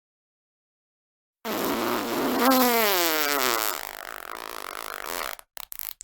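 Fart sound effect: one long fart that starts about a second and a half in, its pitch sliding downward, breaking up into a few short sputters near the end.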